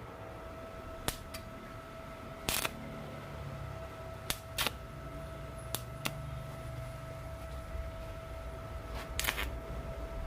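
About eight short, sharp clicks and light taps at irregular intervals, two of them in quick pairs, over a steady low hum with a faint steady whine.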